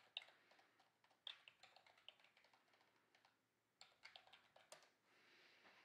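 Faint typing on a computer keyboard: a few short runs of keystrokes with pauses between.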